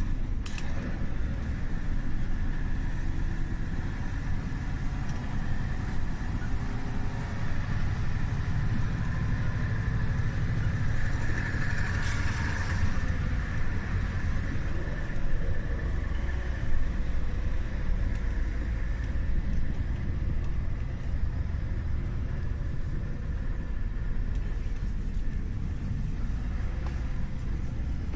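Vehicle engine running steadily with road noise, heard from inside the cab while driving on a snow-covered track: a continuous low rumble.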